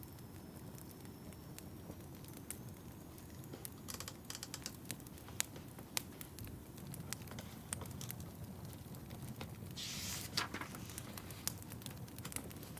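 Wood fire in a fireplace crackling: a low steady rumble of flames with sharp pops scattered through, coming thicker after about four seconds. A brief hissing burst about ten seconds in.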